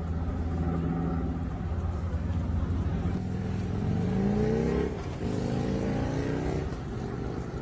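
A vehicle engine revving up, its pitch rising twice with a short dip between, about five seconds in.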